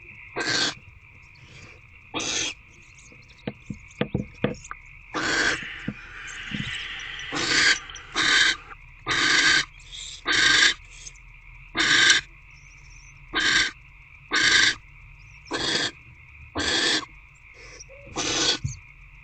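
Barn owls in a nest box giving repeated raspy hissing screeches, each under half a second, about one a second and growing louder partway through, typical of barn owl owlets begging for food. A few sharp clicks of movement in the box come a few seconds in.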